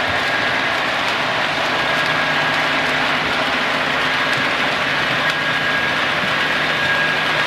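Model trains running on a layout: a steady rolling hiss of wheels on track with a constant high motor whine and a few faint clicks.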